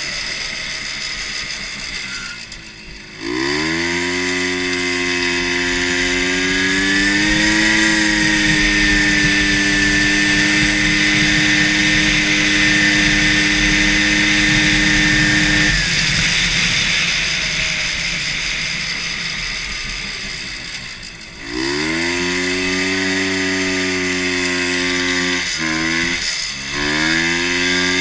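Two-stroke 250cc Rotax snowmobile engine on a racing lawn mower, revving hard. It climbs sharply about three seconds in, holds high revs for about twelve seconds, then winds down. It climbs again about three quarters of the way through, with two quick throttle lifts near the end.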